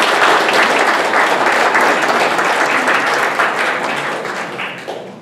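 Audience applauding in a large hall, a dense clatter of many hands clapping that dies away near the end.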